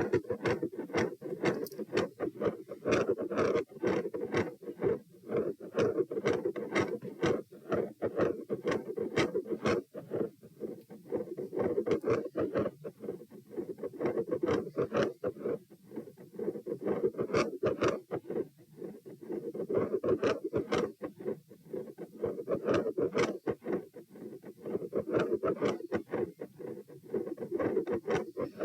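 Fast heart sounds, about 100–120 beats a minute, under a continuous rushing noise that swells and fades every four to six seconds in step with the breathing. The uploader calls this a pronounced continuous phasic respiratory pattern.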